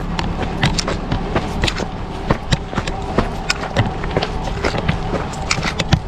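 A vehicle engine running steadily, under a string of irregular clicks and crunches.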